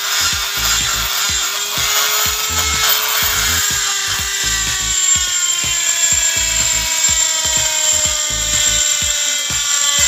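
Electric rotary tool with a small grinding bit whining steadily as it grinds inside the bore of an aluminium intake manifold. Its pitch sinks slowly through the second half. Background music with a steady beat plays under it.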